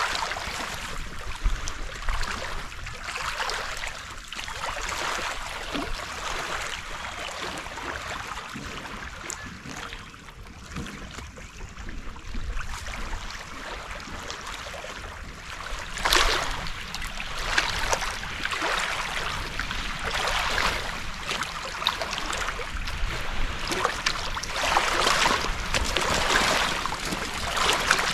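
Small waves lapping on a rocky lakeshore: a steady wash of water, with louder surges about halfway through and again near the end.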